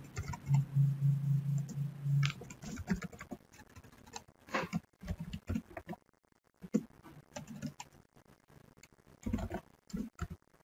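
Computer keyboard typing: irregular key clicks as a short caption is typed, with a low steady hum for about the first two seconds.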